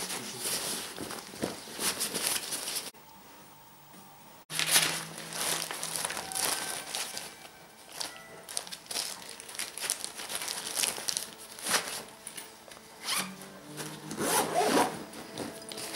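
Irregular rustling and rubbing noises in short bursts, with an abrupt drop to a low hiss about three seconds in and a sudden return about a second and a half later.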